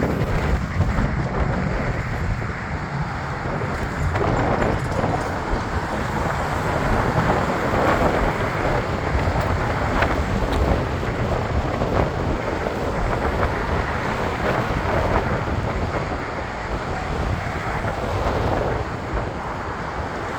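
Amtrak passenger train with GE P42DC diesel locomotives moving slowly along the track: a steady, even rumble with a few faint clicks. Wind buffets the microphone throughout.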